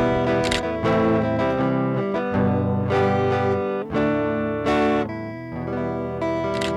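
Background music led by strummed acoustic guitar, changing chords every second or so.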